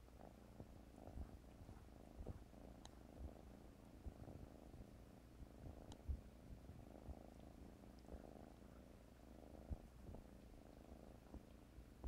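A cat purring softly and steadily, close by, with a few faint dull thumps.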